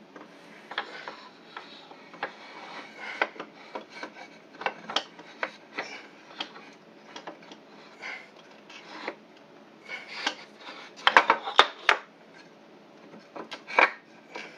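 A red plastic holding fixture and oak blocks being handled and slid into place in a press frame: scattered clicks, rubs and scrapes, with a quick cluster of sharp knocks about eleven seconds in and another knock near the end.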